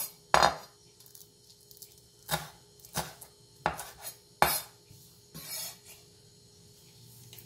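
Chef's knife slicing green onions on a wooden cutting board: about half a dozen sharp, irregularly spaced knocks of the blade against the board, dying away about six seconds in.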